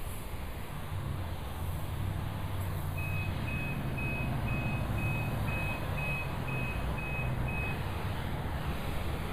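A vehicle engine running with a steady low rumble. About three seconds in, a run of about ten short, high electronic beeps at one pitch starts, roughly two a second, and stops near the end.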